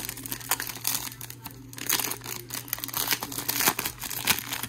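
A foil trading-card pack wrapper is being crinkled and torn open by hand, giving a dense, irregular run of crackles and rustles.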